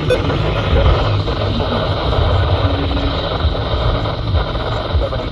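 Steady hiss with a heavy low rumble on a weather radio recording; the synthesized announcer's voice is faint or buried under the noise.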